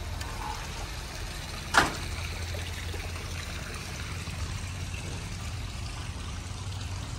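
Swimming pool water trickling and splashing steadily from small spouts in the tiled pool wall, over a low steady rumble. A single sharp click about two seconds in.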